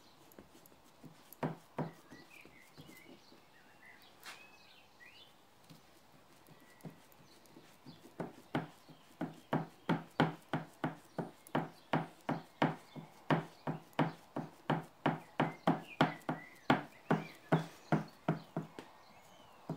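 A damp cloth dabbed again and again onto a painted MDF board on the workbench, making short dull pats: a couple near the start, then from about eight seconds in a steady run of about two to three a second. This is the wiping-back stage, lifting the dark metallic paint to leave an aged patina.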